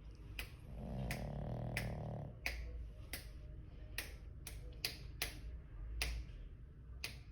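A sleeping pug gives one snoring breath about a second in, among about a dozen sharp clicks at uneven intervals, of unclear source.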